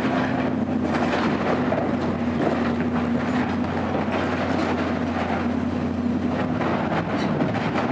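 Caterpillar 320 hydraulic excavator's diesel engine running steadily under working load, with crackling and crunching of breaking siding and framing as its bucket tears into a building.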